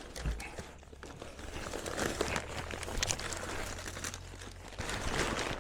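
Packing paper crumpling and rustling as it is pulled off and handled, an irregular crackle that grows busier about two seconds in.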